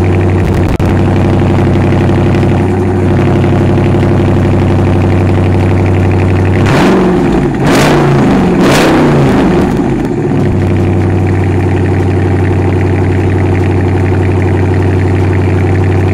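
Dodge Charger Daytona's Hemi V8 running just after a push-button start, idling with a steady low burble. About seven seconds in it is revved in a few quick blips with sharp cracks, then it drops back to a steady idle.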